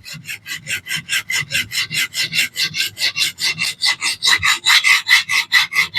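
Coarse Xarilk diamond plate on a Xarilk Gen 2 fixed-angle sharpener stroked fast across the edge of a DC53 steel hunting knife, about six rasping strokes a second. From about two seconds in, a high ringing pitch joins each stroke and grows louder. This change in pitch is the sign of a healthy burr being raised on the edge.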